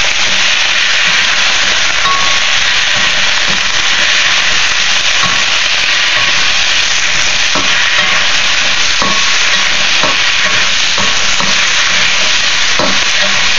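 Vegetables sizzling in hot sesame oil in a wok as they are stir-fried, a steady loud hiss with occasional light knocks of the spatula against the wok.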